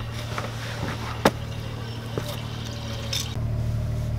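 Fresh water running through a hose into a narrowboat's water tank, over a steady low hum. A sharp knock about a second in, and the hum gets louder near the end.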